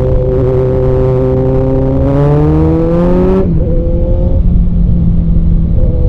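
Kawasaki Z900 inline-four engine running steadily. About two seconds in the pitch rises, then drops suddenly about a second and a half later, and the engine settles into a steady pitch again.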